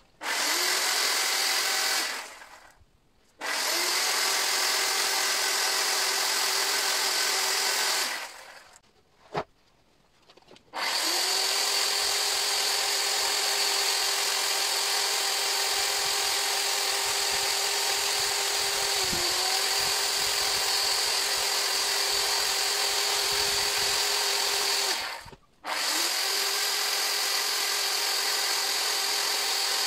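Makita electric chainsaw cutting wood in four runs, its motor whining at a steady pitch. It starts and stops abruptly, with short quiet gaps and no idling between runs. Near the middle the pitch dips briefly under load.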